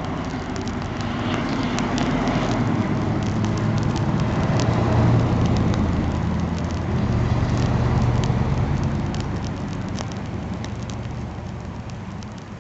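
Wood fire crackling with scattered sharp pops, while a low vehicle rumble swells in the middle and fades away towards the end, as of a car passing.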